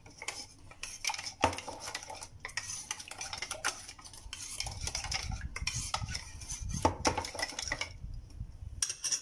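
Metal spoon stirring liquid in a plastic measuring jug, clinking and scraping against the sides in quick irregular clicks as the salt, sugar and yeast dissolve in the water.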